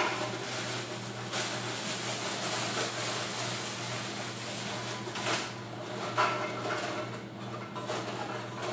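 Plastic bag crinkling and loose plastic drinking straws rustling as they are loaded into a vending machine's straw holder, in irregular rustles over a steady low hum.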